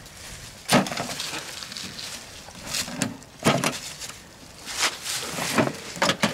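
A supply crate being handled and rummaged through: a series of separate knocks, scrapes and rattles from the crate and the objects inside it.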